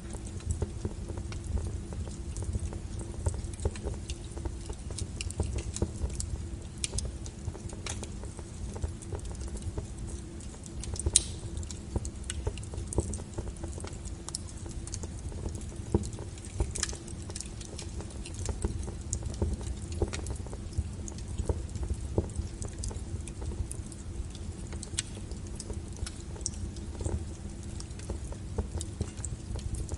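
Wood fire crackling: irregular sharp pops and snaps, a few of them louder, over a low steady rumble of the flames.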